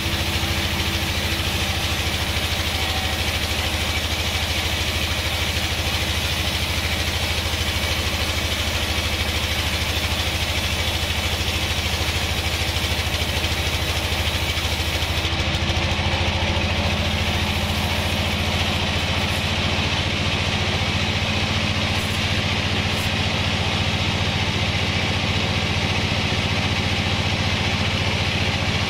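Band sawmill running steadily, a low mechanical drone with a high hiss that drops away about halfway through.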